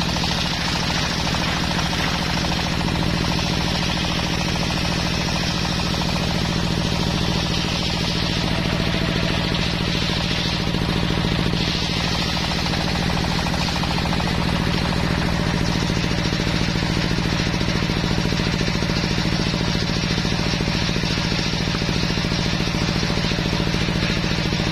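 Belt-driven circular saw bench ripping a teak plank lengthwise. Its drive engine runs steadily with a fast, even knocking beat, and the blade's cut through the wood adds a brighter rasp that swells around the middle.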